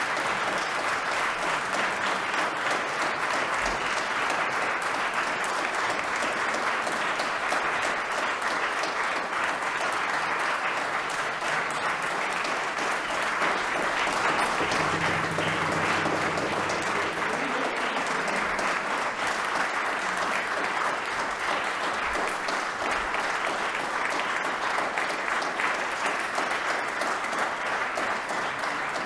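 Audience applause, a dense steady clapping that goes on throughout, with a brief low-pitched sound about halfway through.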